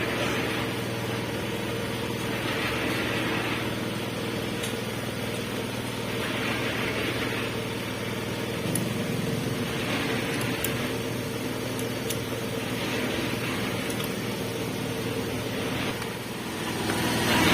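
A steady low machine hum, like an engine idling, with a hiss that swells and fades every three to four seconds.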